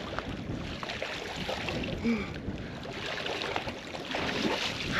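Wind and lake water lapping and splashing around a swimmer wading out through the shallows, with two short vocal sounds about two seconds in and near the end.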